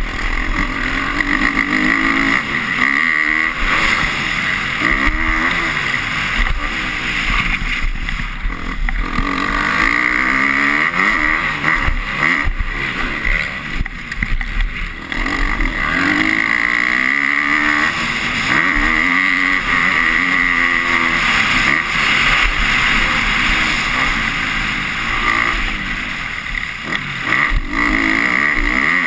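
A 250-class motocross bike's engine revving hard under race riding, its pitch climbing and dropping again and again through shifts and corners, with wind rushing over the helmet-mounted camera.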